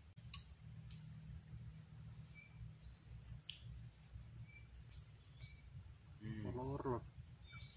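Steady high-pitched drone of insects in the mangroves, over a low rumble, with a few short chirps scattered through it. A man's voice speaks briefly near the end.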